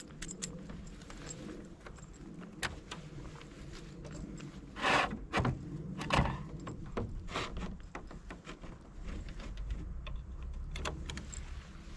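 Scattered small clicks, knocks and rattles of things being handled, with louder clatters about five and six seconds in.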